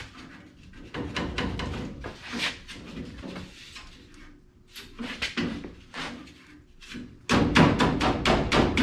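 Knocking and rattling of grille parts being handled and pushed into place on the truck's front end, a run of sharp clatters that comes thickest and loudest near the end.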